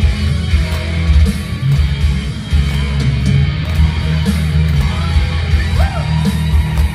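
Instrumental break of a rock song: electric guitar over heavy bass and drums, with no singing.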